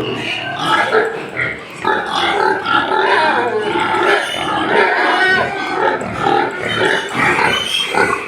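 A pen of domestic white pigs calling all at once, overlapping grunts and higher squeals in a constant din.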